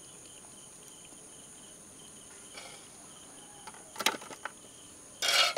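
Steady high-pitched chirring of crickets in the background. A sharp tap comes about four seconds in, and a louder clatter of steel utensils, a skimmer and spoon against a steel pot and tray, comes near the end.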